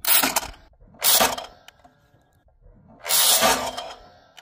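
Caldwell Claymore clay target thrower launching clay pigeons: three loud bursts, each about half a second long, at the start, about a second in and about three seconds in.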